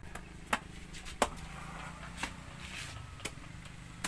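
About five sharp knocks or taps, irregularly spaced roughly a second apart, the second one the loudest, over a low steady background hum.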